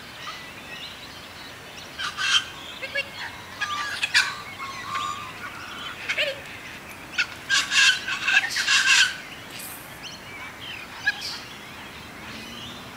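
Wild birds calling in short, repeated bursts, loudest in a busy run about two-thirds of the way through, over a steady outdoor hiss.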